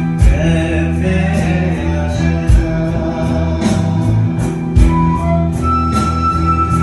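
Live band playing a song: a male voice singing over electric guitars, bass guitar and a drum kit, with the kick drum hitting on the beat. About five seconds in, the singing gives way to a flute holding a long high note.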